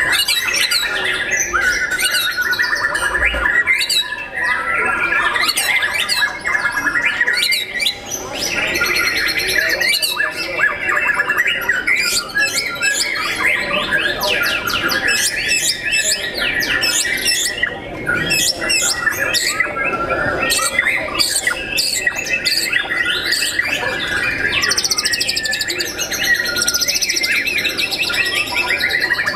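White-rumped shamas singing at once, a dense, unbroken stream of varied whistles, trills and quick chattering notes.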